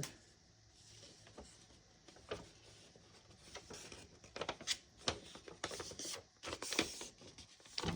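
Faint rustling and light taps of a paper invoice and packaging being handled. The sounds are scattered at first and more frequent in the second half.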